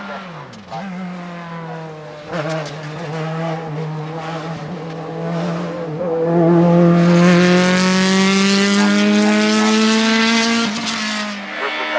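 Racing sports prototype's engine at high revs, accelerating through the gears: one strong note climbing slowly in pitch, with short breaks at gear changes about two and six seconds in. It is loudest in the second half as the car passes close, then cuts off near the end.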